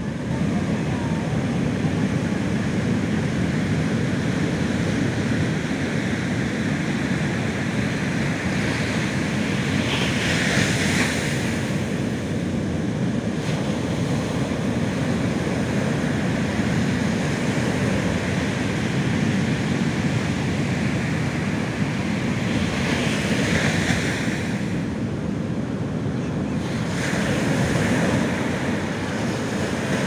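Ocean surf breaking and washing up a sandy beach: a continuous rushing roar, with the hiss of breaking foam swelling about a third of the way in and twice more near the end.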